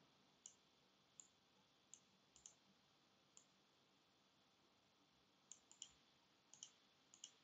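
Faint clicks of a computer mouse button over near silence: about a dozen short, light clicks, scattered irregularly, some in quick pairs.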